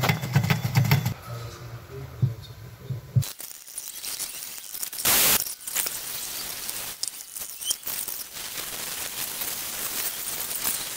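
A hot-air plastic welder runs with a steady low hum for about three seconds, then the sound changes abruptly to scattered clicks and clinks of small metal parts being handled on the plastic hull, with a short burst of hiss about halfway through.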